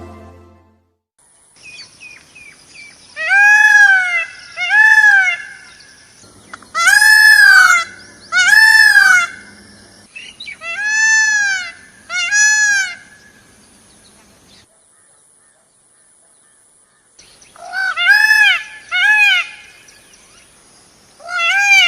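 Peacock (Indian peafowl) calling: loud, wailing calls that rise and fall in pitch, given in three pairs a couple of seconds apart, then a quick run of three shorter calls near the end. A faint steady high tone lies underneath.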